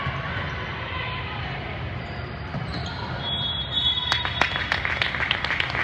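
Volleyball rally in a large gym: a steady echoing murmur of spectators' voices, a short high squeak about halfway through, then a quick run of sharp smacks and claps near the end.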